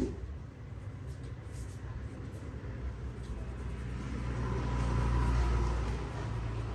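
Low rumble of a vehicle going by, swelling about four seconds in and easing off near the end, with a faint steady whine; a sharp knock right at the start.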